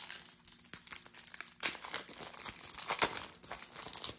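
Wrapper of a Topps Match Attax trading-card pack being torn open and crinkled by hand as the cards are pulled out: a dense run of crackles, with louder ones about one and a half and three seconds in.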